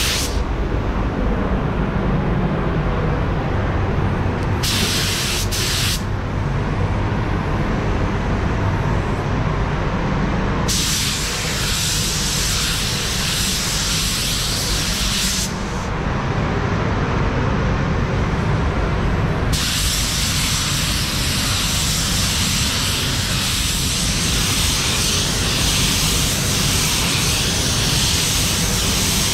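Automotive paint spray gun hissing in bursts as its trigger is pulled, over the steady low rumble of the paint booth's fans. The hiss comes on briefly about five seconds in, again for about five seconds in the middle, and runs through the last ten seconds.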